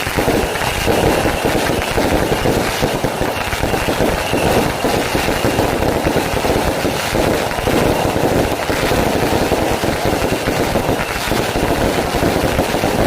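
Fireworks and firecrackers going off in a dense, continuous crackle of rapid bangs, steady and loud throughout.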